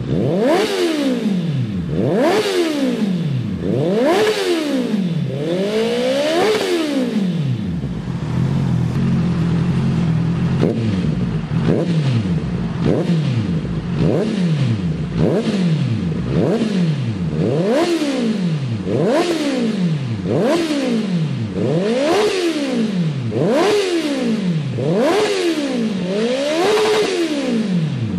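Honda CB650R/CBR650R inline-four motorcycle engine revved over and over in quick throttle blips through its exhaust, the pitch climbing and falling back about once a second. From about eight seconds in, a steady low drone runs under the blips.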